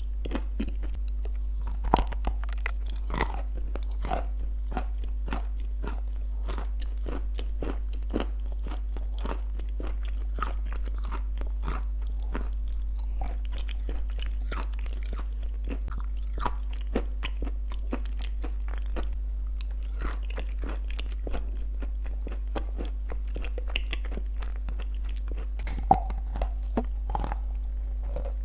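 Close-miked crunching and chewing of baked clay paste shaped like shortbread cookies: dense, rapid crackles throughout, with louder bites about two seconds in and again near the end, over a steady low hum.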